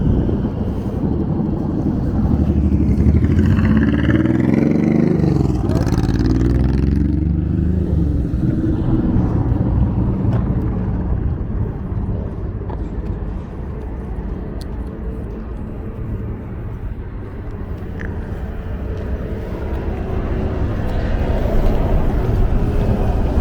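Trolleybus under way: its electric traction drive whines, gliding in pitch a few seconds in as it pulls away, then settles into steady running and road noise.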